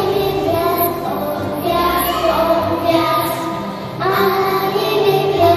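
A group of children singing a Christmas carol together, with instrumental accompaniment underneath.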